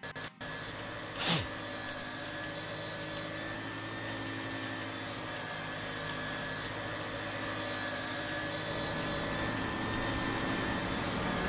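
Electric paper shredder motor running with a steady whirring drone that grows slowly louder. A brief loud falling swoop comes about a second in.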